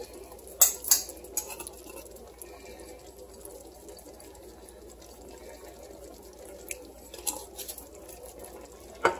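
Pasta and shrimp sizzling softly in a braiser, with a few light clicks and taps about a second in and again near the end.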